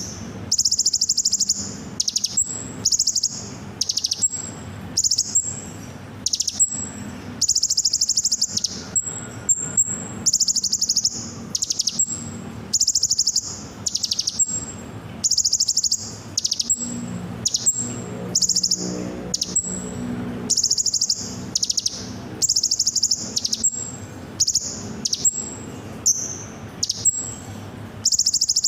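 Kolibri ninja (sunbird) singing in full 'nembak' song, the lure song used to set caged birds singing: short, high-pitched, rapid trills repeated in quick succession, with brief gaps between them.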